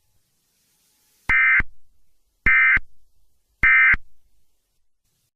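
Emergency Alert System end-of-message code: three short bursts of shrill digital data tones about a second apart, each trailing off briefly.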